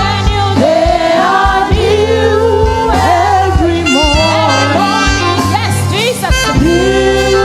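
Live gospel praise music: a lead voice or solo line sliding and wavering in pitch over keyboard and steady low bass notes.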